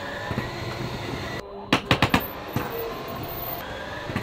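Schwintek in-wall electric slide-out motors whirring as the RV slide room is drawn in, their pitch slowly rising, with a quick run of about four sharp pops about two seconds in and one more soon after. The slide is running out of square, one side about 3 inches off the other, and the owner takes the popping for a sign that something is wrong.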